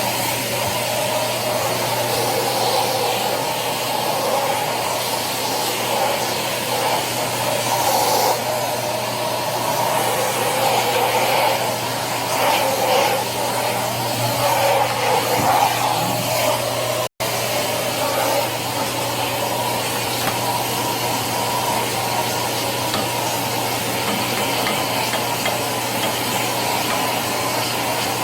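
Electric polishing machine running steadily with its pad grinding on a marble countertop, a constant whirring hum under a rough rubbing noise. The sound cuts out for an instant about two-thirds of the way through.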